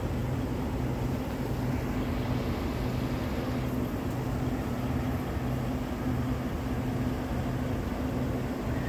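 Distant diesel freight locomotives, an EMD SD70M-2 leading a GE C44-9W, running as they approach: a steady low drone with a regular throb under it.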